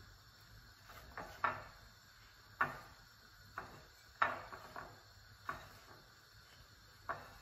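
Hands pressing and turning an egg-dipped bread roll in breadcrumbs in a ceramic bowl: a series of about eight short, irregular knocks and scrapes.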